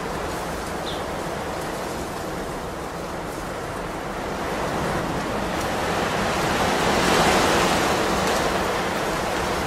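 A steady rushing noise that swells to a peak about seven seconds in and eases off again, with a brief high chirp about a second in.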